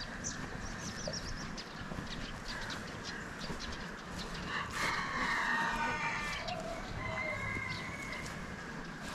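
Chickens calling: a rooster crows once, about five seconds in, lasting about a second and a half, with a fainter call near the end and scattered high chirps throughout.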